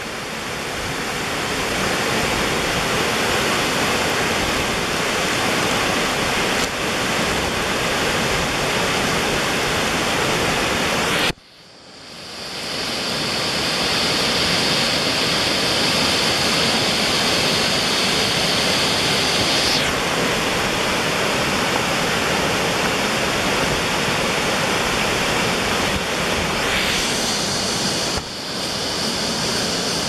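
Waterfall: a steady, loud rush of water falling onto rock. About a third of the way through it drops out briefly and fades back in.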